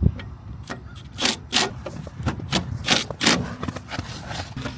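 A sharp knock, then about six short scraping strokes in quick pairs, from hands working the wires being joined on a rooftop furnace's inducer motor.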